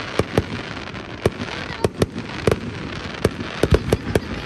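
Fireworks display: aerial shells bursting in quick, irregular succession, about a dozen sharp bangs over a steady background rumble.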